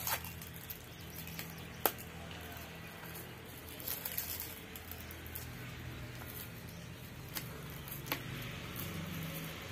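Plastic grafting tape faintly rustling and crinkling as it is stretched and wound around an adenium graft joint, with a sharp click about two seconds in and another near the end.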